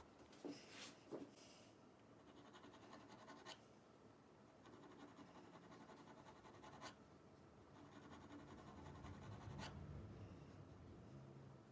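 Faint hand scratching and rubbing, with a few light clicks spread through it.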